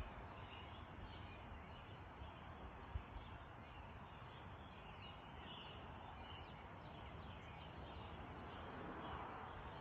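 Faint dawn chorus of songbirds, scattered short chirps and song phrases over a steady background hiss, with a low thump about three seconds in.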